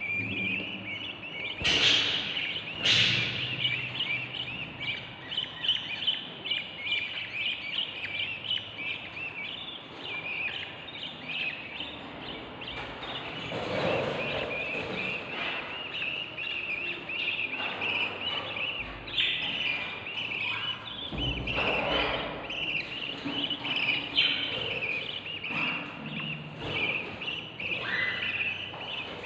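A nestful of budgerigar chicks chirping continuously in dense overlapping calls, the hungry begging of chicks asking to be fed, with two louder, sharper calls about two and three seconds in.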